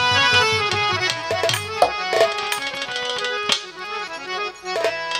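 Instrumental interlude of Bengali folk music: a harmonium plays sustained reedy chords and melody over scattered hand-drum strokes. The music thins out briefly near the end.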